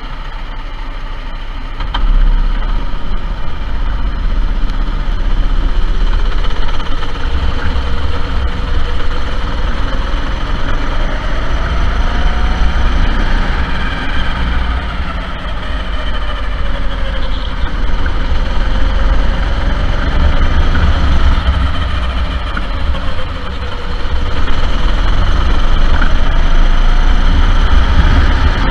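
Go-kart engine running, its pitch rising and falling slowly over several seconds as it speeds up and eases off, over a heavy low rumble. It gets louder about two seconds in.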